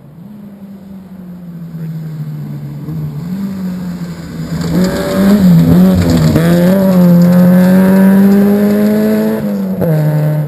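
Rally car engine approaching, growing steadily louder, then held at high revs as the car slides through a gravel corner, with the pitch wavering about halfway through. The engine note drops sharply near the end as the car passes and lifts off.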